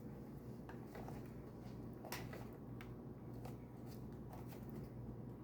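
Faint, scattered small clicks and light handling of the plastic casing of an Xbox power brick as its halves are seated together, over a steady low hum.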